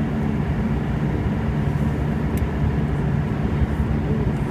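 Fokker 50 twin-turboprop airliner heard from inside the cabin while taxiing: a steady low drone from the engines and propellers at low power.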